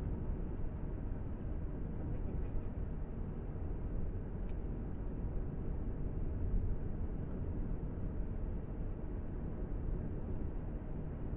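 Steady low rumble of a moving vehicle, engine and road noise running evenly without a break.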